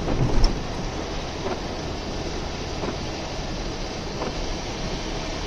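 Steady engine and wet-road tyre noise inside a Citroën XM's cabin at motorway speed. There is a thump about half a second in, and faint regular ticks about every second and a half.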